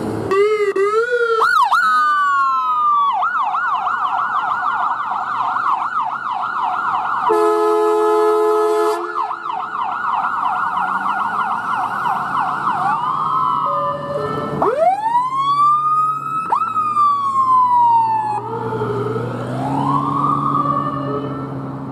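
Emergency vehicle sirens of a responding ambulance and fire department pickup. A fast yelp runs for the first dozen seconds, broken by a horn blast about seven seconds in. A slow wail then rises and falls, and another siren rises near the end over a truck engine.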